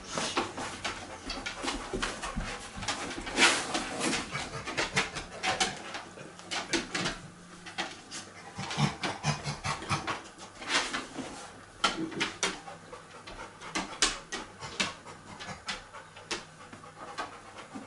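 Labrador panting, in short, irregular breaths.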